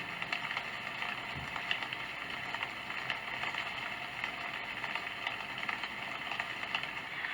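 Sound Oasis ambient sound machine playing its forest rain track: a steady hiss of rain with many small scattered drip ticks.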